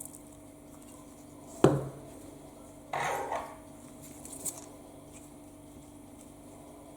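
Metal parts being handled on a hard surface: one sharp metallic clank with a short ring, then about a second later a brief scraping clatter and a light click, over a low steady hum.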